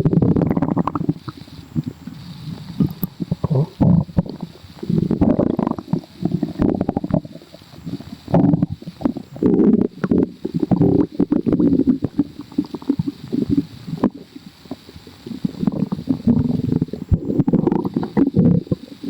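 A person's stomach growling and gurgling, very bubbly. The gurgles come in irregular bouts of crackling pops every few seconds, with quieter stretches between.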